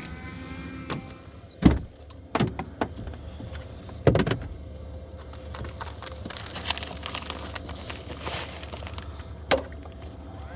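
A few sharp knocks and clunks, the loudest about two seconds and four seconds in, with another near the end, over a steady low hum.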